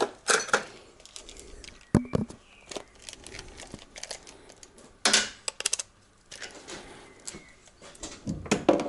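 Handling noise as a multimeter and its test leads are picked up and set up: scattered clicks and rustling, with a sharp knock about two seconds in and denser clattering about halfway and near the end.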